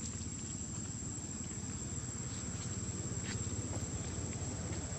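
Insects calling with a steady, high-pitched drone, over a low steady rumble and a couple of faint ticks.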